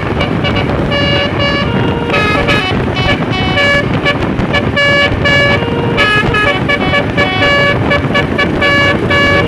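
Bus telolet air horn (Basuri type) playing a quick melody of short notes at several pitches, over steady background noise.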